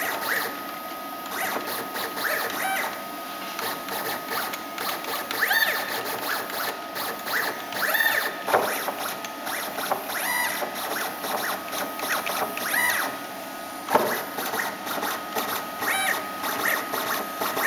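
Three stepper motors from a HobbyCNC kit, driven through their controller, whining through a string of short moves. Each move rises and falls in pitch as the motors speed up and slow down, over a steady high tone.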